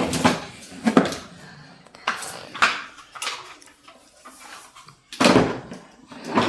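Scattered knocks and clatters of hard plastic vacuum-cleaner parts being handled and set down, the loudest about five seconds in.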